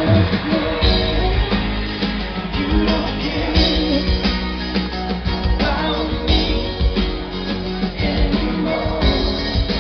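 Live band music with singing, played loud over a concert PA and heard from within the crowd, with heavy bass.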